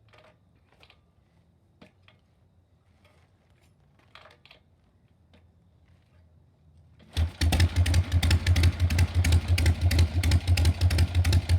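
A few faint clicks and knocks, then about seven seconds in a Harley-Davidson Ironhead Sportster V-twin suddenly fires up. It runs loudly with a rapid, uneven beat.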